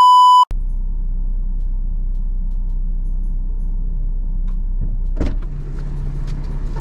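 A steady test-card tone that cuts off about half a second in, then the steady low rumble of a car's cabin with one knock about five seconds in.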